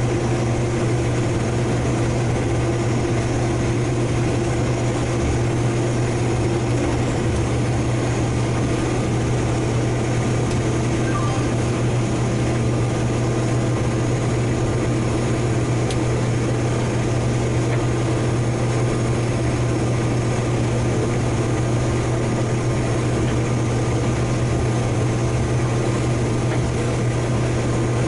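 Heavy harvest machinery running steadily under load: an even engine drone with a strong low hum that does not change.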